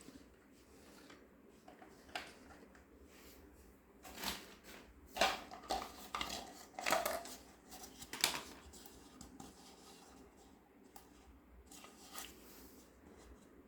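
Small plastic toy kitchenware and its packaging being handled: a run of sharp clicks, taps and rustles from about four to eight seconds in, with light fumbling before and after.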